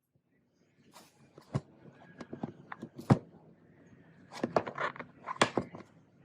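Box and packaging being handled as they are opened: irregular taps, clicks and knocks with light rustling, the sharpest knocks about three and five and a half seconds in.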